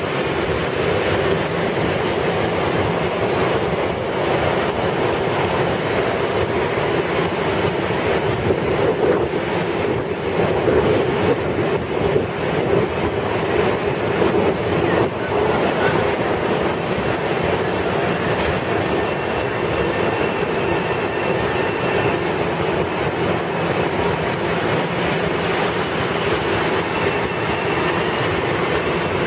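Long Island Rail Road Bombardier M7 electric multiple-unit trains at the platform, making a steady train noise. A faint high whine comes and goes in the second half.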